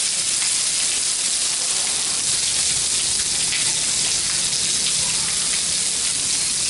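Whole climbing perch sizzling in a hot non-stick pan while a brush bastes them with a seasoning sauce: a steady frying hiss with small pops.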